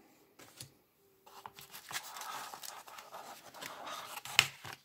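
Paper and cardboard rustling and sliding as a phone box's cardboard insert and paper booklets are handled, starting about a second in, with one sharp tap of card a little before the end.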